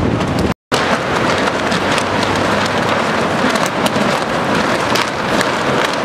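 Loose plastic sheeting on construction scaffolding flapping and crackling in strong wind: a dense run of rustling snaps over a steady rush of wind. The sound cuts out for an instant about half a second in.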